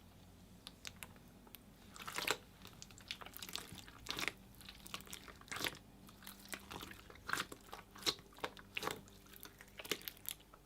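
A hand squishing and pressing into a thick, jiggly water slime, making irregular wet clicks and pops, the loudest about two seconds in and again past the middle.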